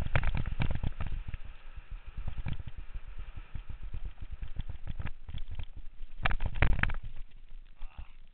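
Rapid, irregular clattering and knocking from a downhill mountain bike and its loosely mounted helmet camera shaking over a rough dirt trail at speed, with a louder burst of knocks about six and a half seconds in.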